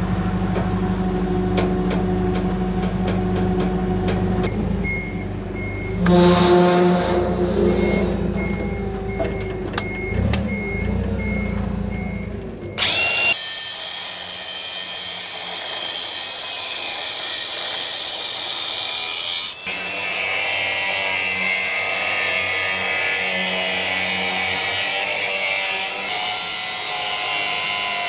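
A propane-powered forklift's engine running while lowering a truck bed, with a reversing alarm beeping about twice a second for several seconds midway. About 13 seconds in this gives way to a cordless Milwaukee angle grinder cutting steel, a steady high whine and hiss with one brief break.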